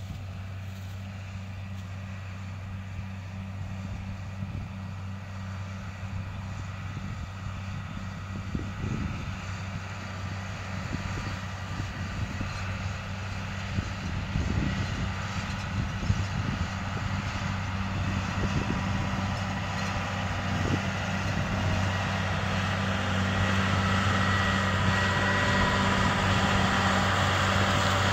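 A John Deere combine harvester drives closer across the field. Its diesel engine and a higher mechanical whine grow steadily louder over the second half. A steady low engine hum runs underneath throughout.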